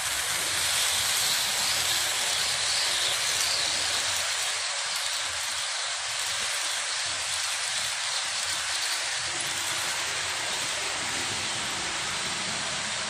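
Rivarossi H0 model of the DB class 10 streamlined steam locomotive and its coaches running on the layout's track: a steady rushing hiss of the train rolling along the rails.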